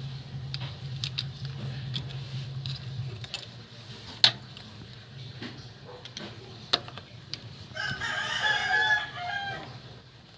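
A rooster crows once, near the end, one call of just under two seconds. Before it come scattered sharp clicks, two of them loud, over a low steady hum that fades after about three seconds.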